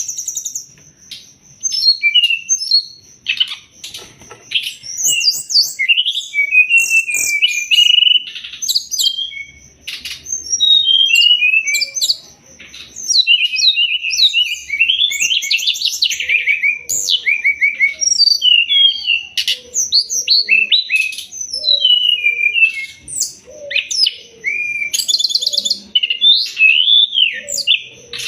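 Brown-chested jungle flycatcher (sikatan rimba dada coklat) singing a long, varied run of quick chirps, trills and whistles with only brief pauses, over a steady high thin tone.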